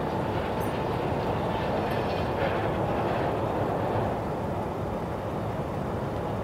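Boeing 747-400 freighter's four jet engines running at taxi power as it lines up on the runway: a steady, even rumble with no clear whine.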